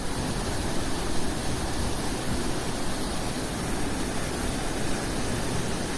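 Rushing water: a steady, even hiss of flowing water.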